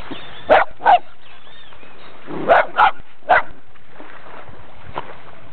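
Brazilian terrier (Fox Paulistinha) barking: five short barks, two about half a second apart near the start, then three in quick succession about two and a half seconds in.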